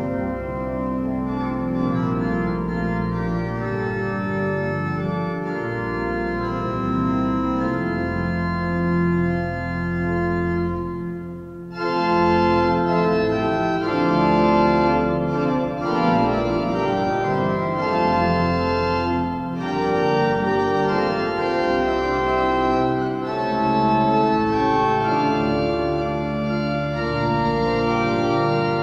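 Church pipe organ playing held chords over a deep bass. About twelve seconds in it breaks off briefly and comes back louder and fuller.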